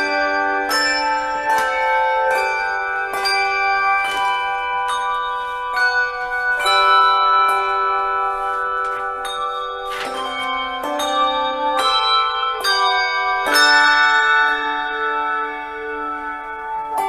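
Instrumental music played on bells: struck bell notes ring out in chords, a new strike every second or so, over a lower held note that shifts pitch a few times.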